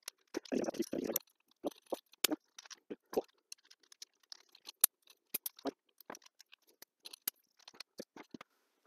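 Scattered small clicks and taps of an airsoft rifle's CO2 shell cartridge being handled in the fingers while a 6 mm BB is pushed into the end of the shell.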